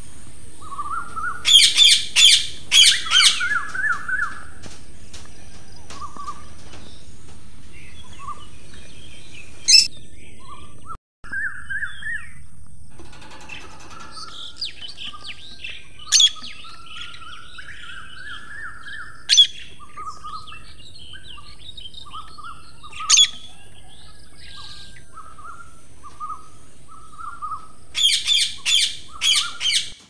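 Parrots calling: a burst of sharp, shrill repeated calls near the start and again near the end, single sharp calls every few seconds in between, over many softer chirps. The sound drops out for a moment about eleven seconds in.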